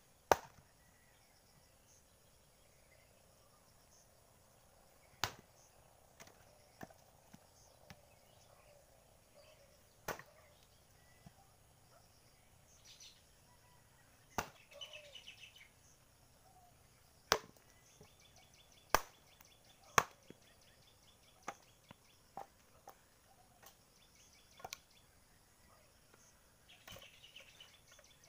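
Axe splitting firewood logs: sharp single chops every few seconds, the loudest near the start and in the middle, with lighter knocks of wood between them. Faint chirping is heard between the blows.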